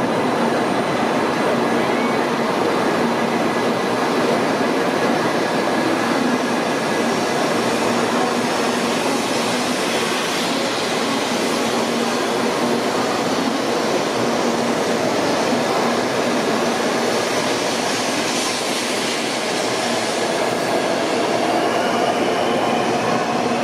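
A 923 series Doctor Yellow Shinkansen pulling out of the platform, its cars running past with a steady rumble as it gathers speed. A whine rises in pitch near the end.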